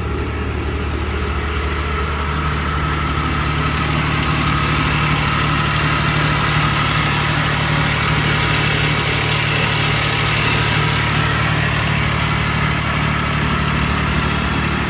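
Engine of a Sakai GW 25 double-drum road roller idling steadily.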